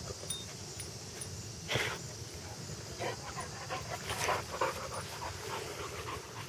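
Boxer dog panting and huffing in quick, irregular breaths as it noses through the plants, with a louder huff about two seconds in and a run of short breaths in the middle.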